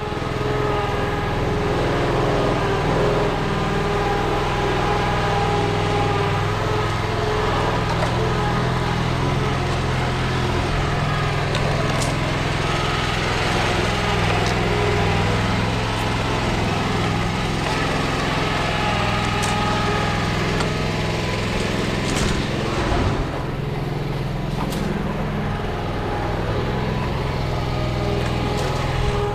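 Engine running steadily at a constant speed, with a few sharp clicks and a short knock about two-thirds of the way through.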